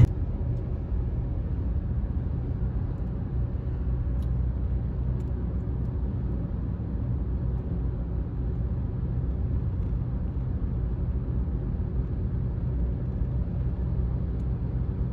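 Steady low rumble of tyre and engine noise inside a car cruising at highway speed, about 72 mph.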